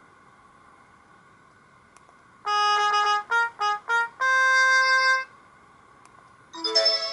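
Sony Ericsson K200i mobile phone ringtone: a short brass-like melody of a held note, three quick notes and one long note, starting about two and a half seconds in. After a brief pause, another ringtone's notes begin near the end.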